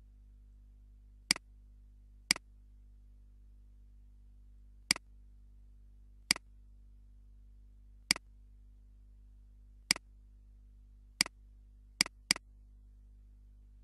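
Computer mouse clicks: nine separate sharp clicks spaced one to two seconds apart, ending in a quick double-click near the end, over a faint steady low hum.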